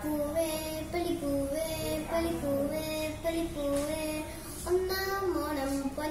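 A young girl singing a Malayalam Onam song solo, holding each note and gliding to the next.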